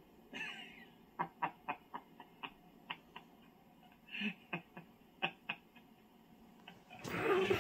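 A run of light, irregularly spaced clicks or taps, about a dozen over several seconds, followed near the end by a short, louder rush of noise.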